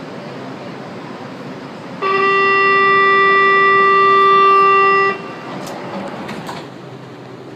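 Metro train's door-closing warning tone: one steady, loud beep held about three seconds, starting about two seconds in and cutting off sharply, over the steady hum of the stopped train. A few short knocks follow as the doors slide shut.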